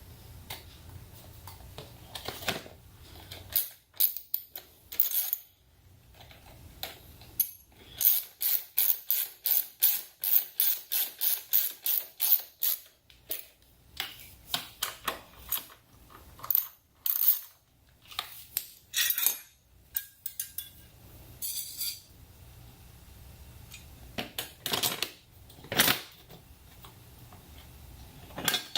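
Small metal parts and hand tools clicking and clinking during motorcycle reassembly, with a run of quick, even clicks about four a second for several seconds in the first half.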